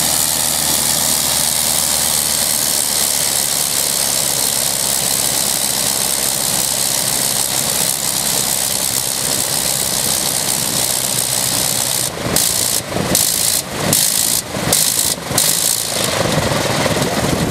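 The Sopwith Pup's 80 hp Le Rhône nine-cylinder rotary engine runs steadily on a ground run. About twelve seconds in, the sound stutters, cutting out briefly about five times as the engine is shut down, then it runs down.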